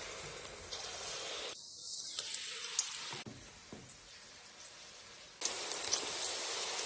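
Batter fritters frying in hot mutton fat, a steady sizzle. It drops quieter about halfway through and jumps back louder near the end.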